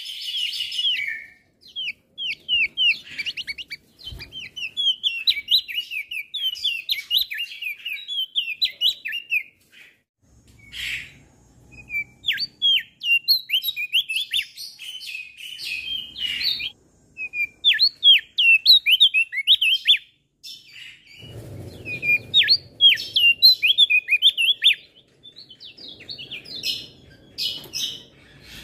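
Male crested white-eye (opior jambul) singing: a busy twittering song of rapid, short, high chirps that sweep downward, delivered in long runs broken by brief pauses.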